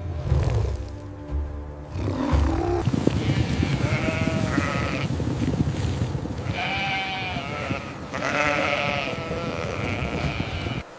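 Sheep bleating, about four wavering calls of roughly a second each spread across the stretch.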